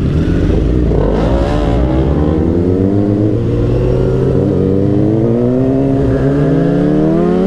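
Motorcycle engine accelerating through the gears: its pitch rises about a second in, falls back, then climbs steadily for several seconds.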